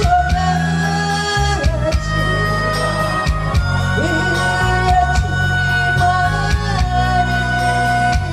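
A female singer performing with band accompaniment: long held sung notes over a steady drumbeat and guitar.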